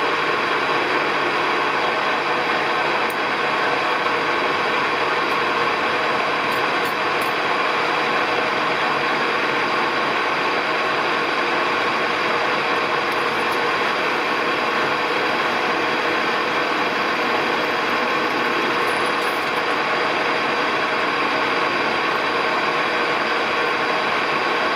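Metal-turning lathe running steadily under power, its geared headstock giving a constant whine of several held tones.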